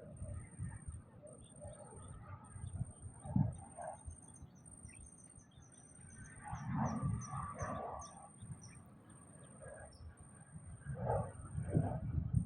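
Birds calling, with a quick run of short, high chirps from about four to nine seconds in and louder lower calls around it, over a faint, steady, high pulsing tone.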